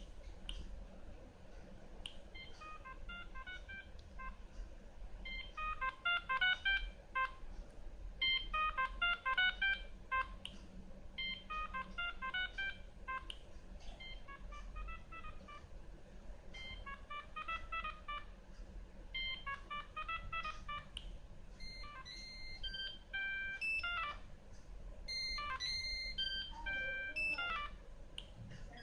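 Siemens M65 mobile phone playing its built-in ringtones through its own small loudspeaker. A short electronic melody phrase repeats about seven times, then near the end a different ringtone of plainer, steadier beeping tones plays.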